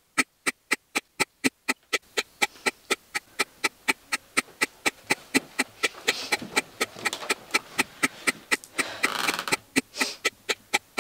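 A fast, even ticking, about four to five sharp clicks a second, with a soft breathy sound twice in the second half.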